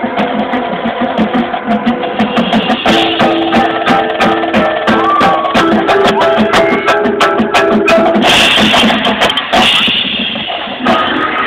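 Marching band playing live: held brass and wind chords over a steady drum beat, with a burst of hissing noise about eight seconds in that lasts under two seconds.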